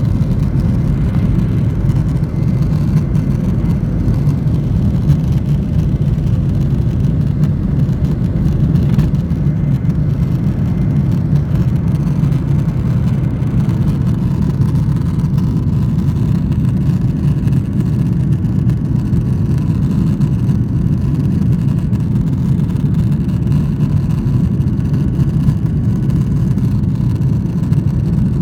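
Steady low rumble of a jet airliner's engines and airflow heard from inside the cabin during take-off and climb.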